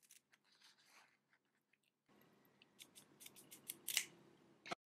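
Steel scissors snipping through a layer of cloth in a string of short, sharp cuts, faint at first and louder and closer together from about halfway, then stopping suddenly near the end.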